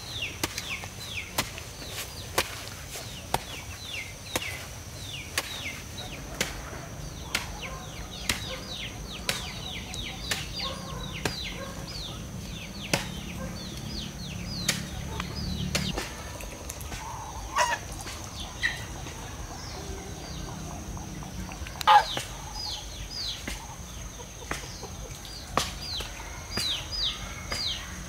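Chickens with chicks, mostly many rapid, high, falling peeps, with a louder call about two-thirds of the way through. Sharp ticks come about once a second, and a thin high tone runs steadily underneath.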